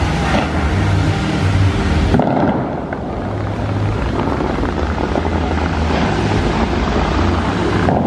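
Bellagio fountain's water jets spraying and falling back into the lake: a steady rush of water with a low rumble under it, its hiss dropping back a little about two seconds in.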